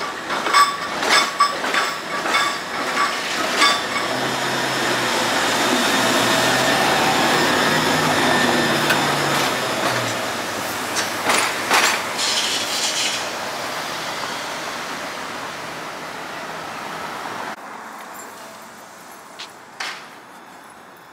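SEPTA Kawasaki light-rail trolley passing on street track. Its wheels clack over the rails in a run of sharp clicks, then there is a steady rumble with a motor hum as it goes by close, a few more clanks a little past the middle, and it fades away.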